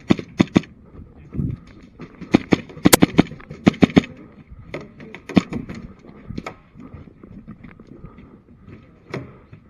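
Airsoft pistols firing: sharp snapping shots, three near the start, a fast volley a couple of seconds in, then single shots spaced out toward the end.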